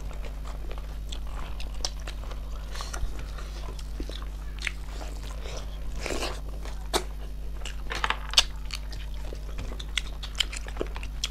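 Close-miked eating of snail curry: irregular chewing, biting and crunching with small wet clicks, and a few sharper, louder smacks about six and eight seconds in.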